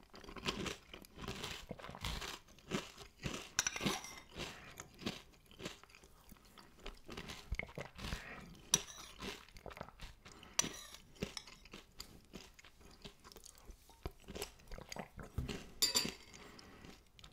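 A person chewing a mouthful of crunchy Nesquik chocolate breakfast cereal close to the microphone: irregular crunches, several a second, with short pauses between them.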